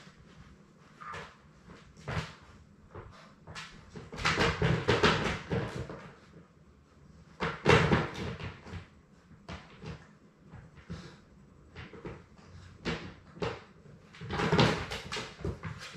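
Labrador puppies moving about in their pen right at the microphone: scattered knocks, bumps and rustling, louder for a couple of seconds about four seconds in, once about eight seconds in, and again near the end.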